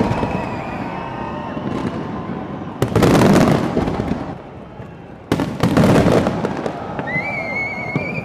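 Aerial fireworks bursting: two big booming bangs about two and a half seconds apart, each trailing off in crackle, with smaller pops between them. A wavering high whistle comes in near the end.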